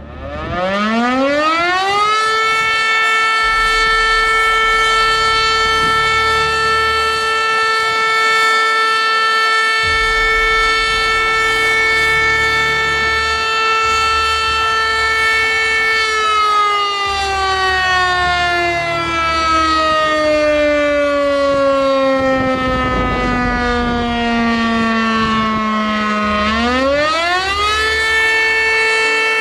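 Electric-motor civil-defense siren winding up over about two seconds into a loud, steady wail. About two-thirds of the way through it slowly slides down to about half its pitch, then winds back up to the full steady tone near the end.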